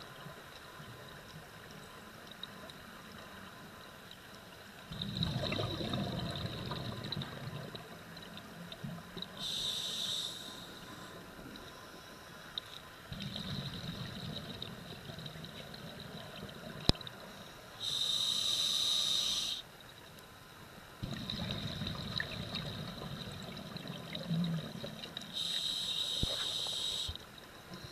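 Scuba diver breathing through a regulator underwater: a short hissing inhalation through the demand valve, then a few seconds of rumbling exhaled bubbles, repeated about three times.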